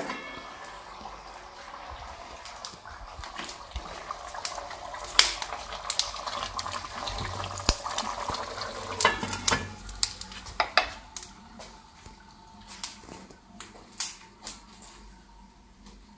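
Beef karahi simmering and sizzling in a metal pot, with a wooden spoon scraping and knocking against the pot. The sizzle drops away after about ten seconds, leaving scattered knocks.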